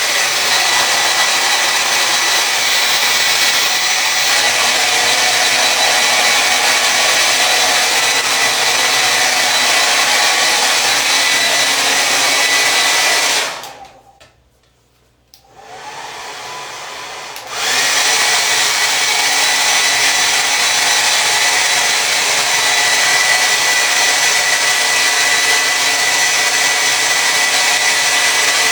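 Hair dryer blowing steadily with a faint steady whine. About halfway through it is switched off and dies away to near silence for a second or two. It comes back on quieter, then returns to full strength.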